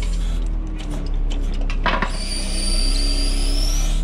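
Truck-mounted hydraulic knuckle boom crane working under load as it drags heavy scrap: the truck's engine runs with its pitch stepping up and down as the hydraulics are worked, a sharp knock comes about two seconds in, and a high whine runs through the second half.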